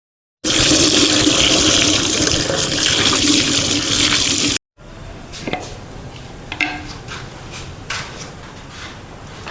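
High-pressure washer jet spraying water, a loud steady hiss that stops abruptly after about four seconds. After that comes a much quieter stretch with a few light clicks and knocks.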